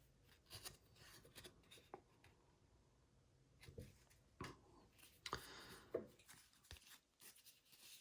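Faint, scattered scrapes, swishes and light clicks of trading cards being slid off a stack and handled one after another.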